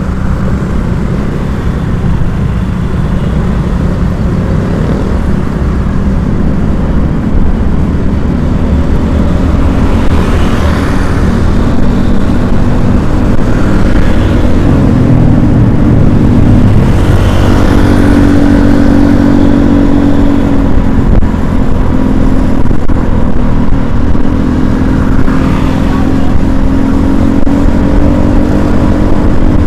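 Wind buffeting the microphone over a road vehicle's engine while riding, loud, with the engine note rising and falling through the middle.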